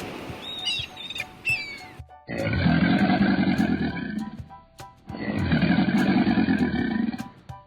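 A large animal roaring twice. Each roar is long and deep and lasts about two seconds, with a pause of about a second between them. A few short, high chirps come before the roars.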